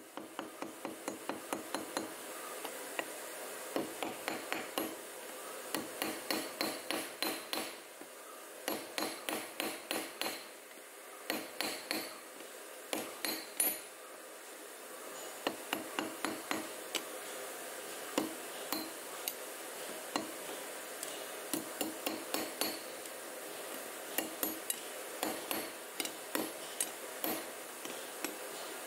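Claw hammer striking an iron rod laid on a small metal block that serves as an anvil. The blows come in quick runs of about four a second, with short pauses between the runs.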